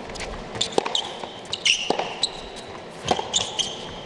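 A tennis ball is struck back and forth with rackets in a rally, giving sharp hits and bounces about once a second. Short high squeaks of sneakers on the indoor hard court come in between.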